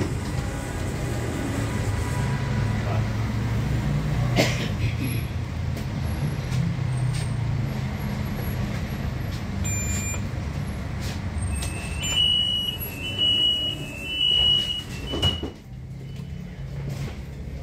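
Astra Imperio Metropolitan tram heard from inside while rolling slowly: a steady low rumble with three sharp knocks, and a run of short high beeps near the end.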